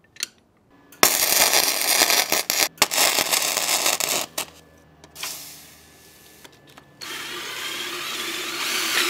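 MIG welder arc crackling and sputtering for about three seconds as a steel washer is welded onto the engine-mount bracket, with brief breaks in the arc. Near the end, a power tool starts up and runs steadily, spinning a wire brush against the fresh weld to clean it.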